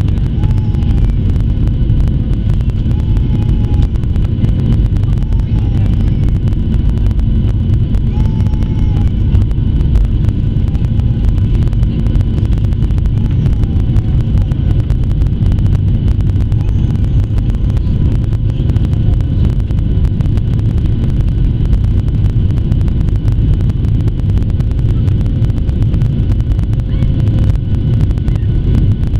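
Boeing 737-700 cabin noise from a window seat over the wing in flight: the CFM56 engines and the airflow make a loud, steady rumble with a few faint, steady whining tones above it.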